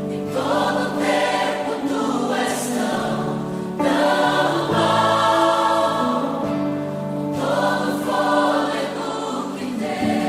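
Christian worship music: choir singing with instrumental backing.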